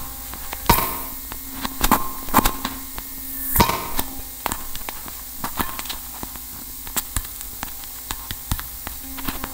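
Experimental sound-art recording: sparse, irregular clicks and knocks, the loudest about a second in and again near the middle, over a faint steady hum with a few held low tones.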